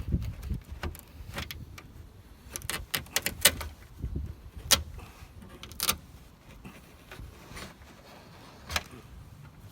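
Irregular sharp clicks and small clinks with some scraping: bits of broken glass and hardened urethane being picked and scraped out of a car's rear window frame.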